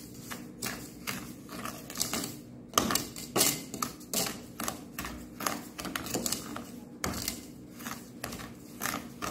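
Wooden spoon stirring dry granulated sugar in an aluminium ring cake pan on a low gas flame, scraping and crunching against the metal in repeated strokes about twice a second; the sugar has not yet begun to melt into caramel.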